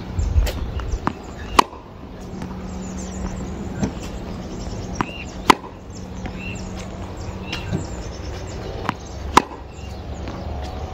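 Tennis balls struck by a racket and bouncing on a hard court: sharp pops every few seconds, the loudest coming about every four seconds, with fainter knocks between.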